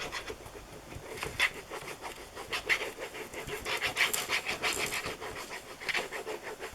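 Glue being applied to card: a run of short, irregular, soft scratchy and airy strokes.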